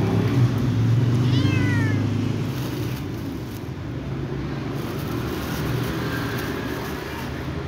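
Ginger kitten meowing once, a single falling cry about a second in, begging for food, over a steady low hum.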